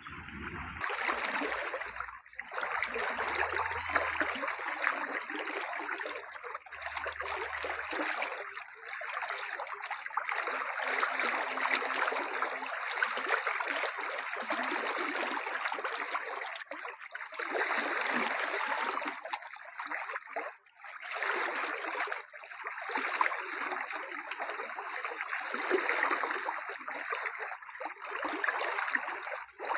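Running water, a steady trickling and splashing rush with a few brief drops in level.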